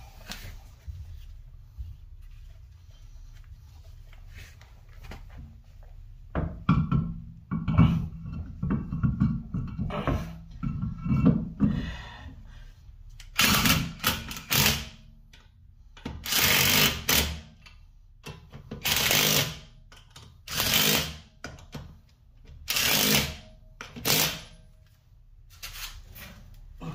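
A steel wheel is mounted on a car's hub, with knocking and clatter as the wheel and lug nuts go on. Then the lug nuts are run down with a power tool in about eight short bursts of a second or so each.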